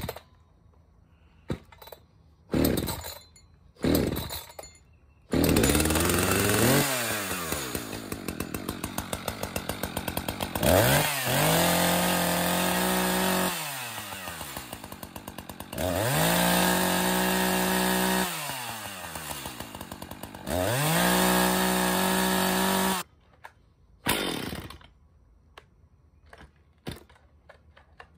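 Two-stroke chainsaw being pull-started. A few short bursts as the starter cord is pulled, then the engine catches about five seconds in. It is revved to full throttle three times, dropping back to idle between, and stops abruptly about 23 seconds in. More short starter pulls follow near the end.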